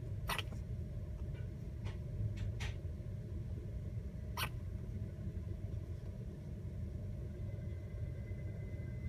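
A baby hiccupping: several short, sharp hiccups in the first few seconds, the last about four and a half seconds in, over a steady low rumble.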